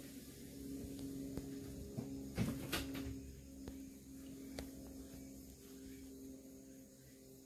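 Steady low electrical hum, with a few faint clicks and a short cluster of knocks about two and a half seconds in.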